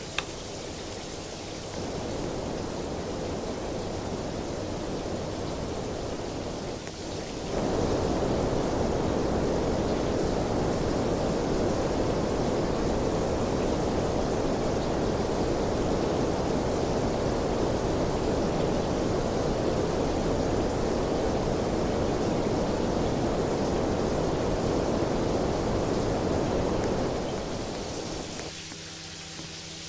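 A fan blowing air with a steady rushing noise. It grows louder about seven seconds in, then eases off near the end, leaving a quieter rush with a steady low hum.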